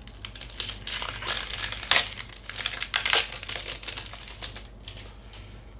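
Foil trading-card booster pack wrapper crinkling and crackling as it is torn open by hand, in a dense run of irregular crackles, loudest about two seconds in, then dying away.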